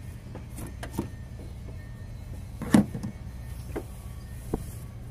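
Scattered clicks and knocks of a hand tool against metal in a pickup's engine bay, with one louder clank near the middle, over a steady low hum.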